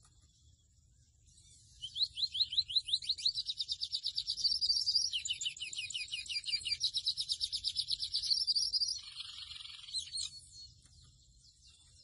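Song of a seedeater (mochuelo, Sporophila): a long, fast series of sharp downslurred notes, about eight to ten a second, starting about two seconds in, shifting in pitch partway through and ending in a buzzy trill about ten seconds in.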